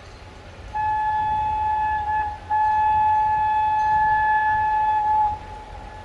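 Diesel locomotive's horn sounding two single-note blasts, a shorter one and then a longer, slightly louder one, as the train approaches.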